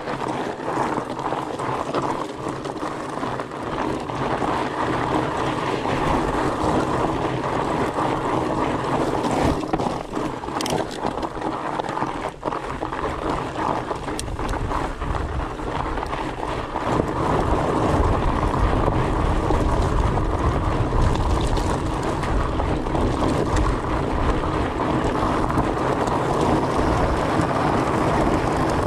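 Riding noise from a Fatback Rhino FLT fat bike on rocky desert singletrack: its 4.8-inch tyres crunching and rattling over gravel, with wind rushing over the microphone. A heavier low rumble comes in a little past halfway and makes it louder.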